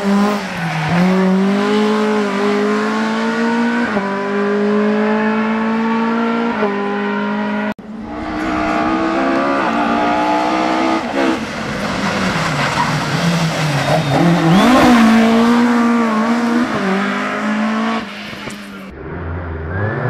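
Ford Escort Mk2 rally car engine driven hard at high revs. The pitch climbs and then drops at each upshift, and later falls and climbs again as the car slows for a corner and accelerates away. The sound breaks off abruptly twice where the clips are cut together.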